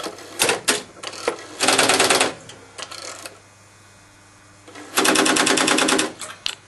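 Strowger exchange selectors and relays clattering as a number is dialled: a few sharp clicks, then two bursts of rapid stepping, the second the longer at about a second.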